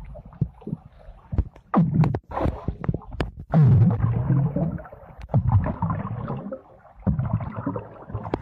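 Muffled underwater sound heard through a phone submerged in a swimming pool: uneven low rumbling surges of moving water and bubbles from a swimmer, with scattered sharp clicks. The loudest surge is a few seconds in, as he blows out bubbles.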